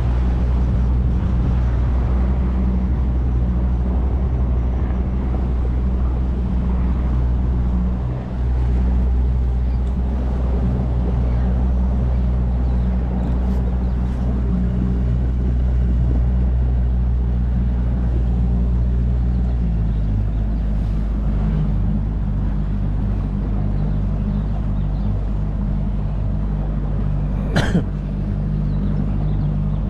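Motorboat engine running steadily, its note changing about twenty seconds in as the engine speed shifts, with a single sharp knock near the end.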